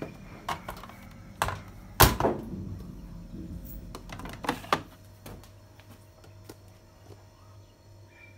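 Beko front-loading washing machine being handled: its porthole door shut with a loud thunk about two seconds in, then two quick plastic clicks as the detergent drawer is pulled open.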